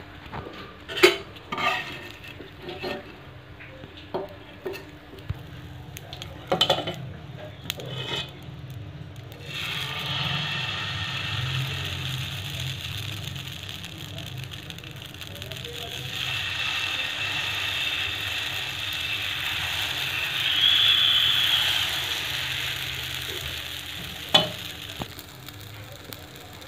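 Dosa batter sizzling on a hot tawa, a steady hiss through the second half. Before it, scattered knocks and scrapes of a metal utensil against the pan. A sharp click comes near the end.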